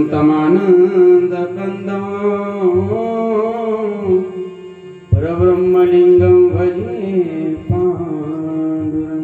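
A man singing a devotional kirtan melody solo into a microphone, in long drawn-out phrases with held, ornamented notes. The first phrase fades out about four seconds in, and a second begins about a second later.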